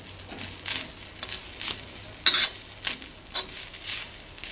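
A cooking utensil scraping and stirring grated coconut and onion in an oiled tava, in short strokes about every half second, the loudest a little past two seconds in, over a faint sizzle of the frying mix.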